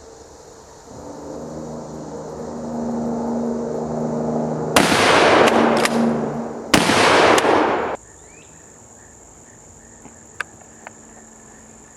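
A 12-gauge pump shotgun (Smith & Wesson 916A) fired twice, about two seconds apart. Each blast has a long rumbling tail, and a couple of sharp clicks come between them. Insects buzz steadily in the background.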